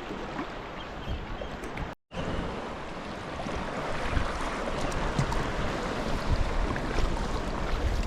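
Sea water washing and splashing around a kayak as waves break along the cliffs. The sound cuts out for a moment about two seconds in, then comes back a little louder.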